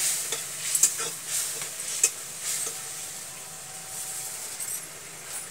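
Sunsunia (water clover) greens being handled and sliced on a bonti blade: crisp leaf rustling with a few sharp snips, most of them in the first two seconds.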